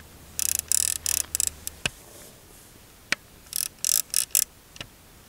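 Riflescope turrets on a Nikko Stirling Diamond 4-16x44 scope being turned by hand, clicking in 1/10-mil steps. There are two runs of rapid clicks, the first early and the second near the end, with a few single sharper clicks between them.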